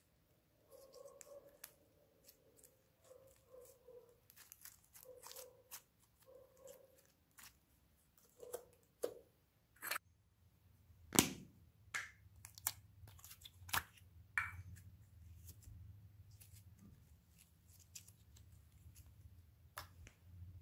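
Hands stretching and kneading soft blue slime, giving soft squishy, sticky sounds for the first half. From about ten seconds in come sharp clicks and knocks as small plastic slime containers are opened and handled over a glass bowl.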